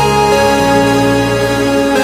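Background music of held chords that change a few times.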